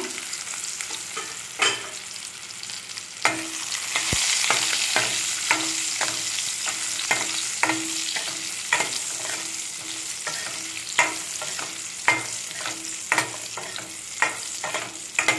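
Quartered eggplants sizzling in hot sesame oil in a stainless steel pan. A metal spatula repeatedly scrapes and knocks against the pan as they are stirred. The sizzle grows louder a few seconds in.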